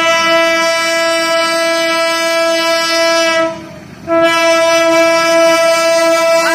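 Diesel locomotive horn of an approaching passenger train, sounding in long, loud, steady blasts: the first breaks off about three and a half seconds in, and the next starts about half a second later.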